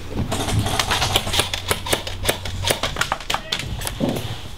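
Airsoft gunfire: a rapid, irregular string of sharp clicks and cracks, several a second, starting just after the beginning and dying away about a second before the end.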